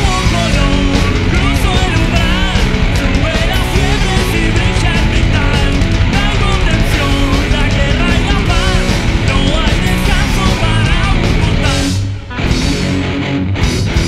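Rock song with electric guitar and a full band, a lead melody wavering in pitch over it. About twelve seconds in the music briefly thins out and drops, then comes back in.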